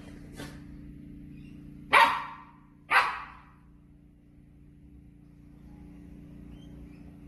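Puppy barking twice, about a second apart, over a faint steady hum.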